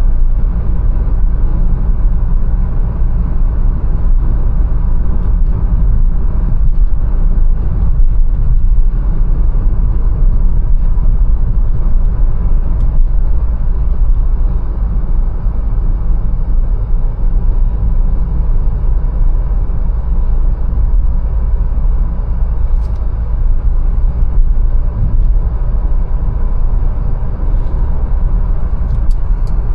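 Mercedes-Benz A180 being driven, a steady low rumble of engine and tyre-on-road noise. A few faint, evenly spaced ticks come near the end.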